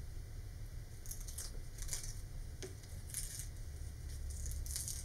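Fingers peeling and rubbing the rubber-cemented paper pattern off a thin cardboard centering ring, in a few short rustling scrapes.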